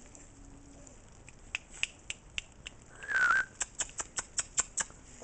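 A short, slightly warbling high whistle about three seconds in, the loudest sound, amid a run of sharp clicks that come faster, about five a second, after it.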